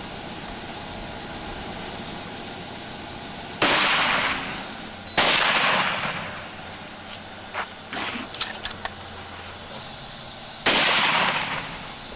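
Three rifle shots from a scoped hunting rifle fired at a target: the first about three and a half seconds in, the second a second and a half later, the third near the end, each sudden and trailing off over about a second.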